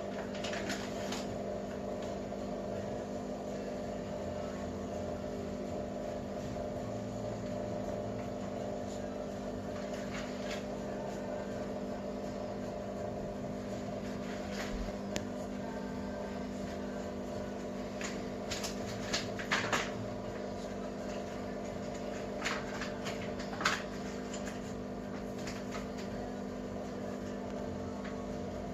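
A running machine's steady electrical hum, with a few light clicks and knocks, the sharpest about three-quarters of the way through.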